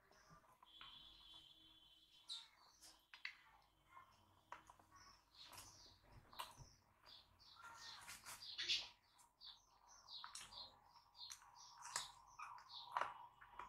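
Faint eating sounds of a person eating rice by hand: many small wet clicks, lip smacks and chewing, with fingers working the rice on a steel plate. A louder crunch comes near the end as a green chilli is bitten.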